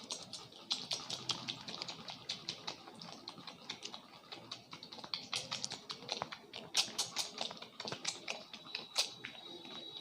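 A barber's fingertips and hands tapping and patting rapidly on a head during a traditional Indian head massage (champi), a quick, uneven run of light taps. A thin, steady high tone comes in near the end.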